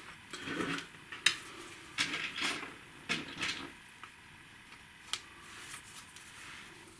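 Light clicks and taps of small plywood kit pieces being handled and fitted together, a handful of separate knocks with soft rustling between them.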